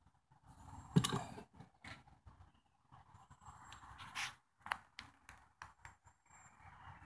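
Light handling noise: a few soft knocks and scrapes as a small die-cast toy car is picked up and moved about on a tabletop. The loudest knock comes about a second in.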